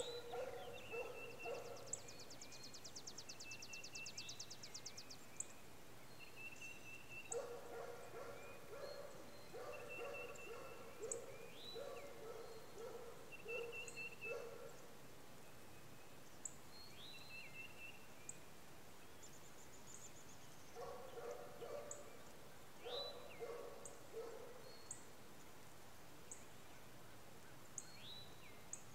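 Faint animal calls: groups of short, low pitched notes come back every several seconds, with high short chirps and quick upward sweeps between them, and a rapid high trill near the start.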